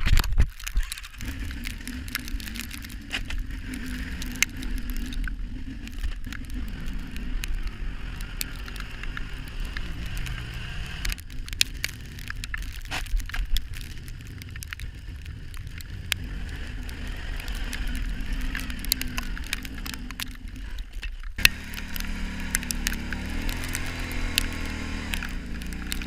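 Kawasaki Brute Force 650 ATV's V-twin engine running while plowing snow, with scattered crackles and clicks over it. The sound changes abruptly about 21 seconds in, after which the engine's pitch rises and falls.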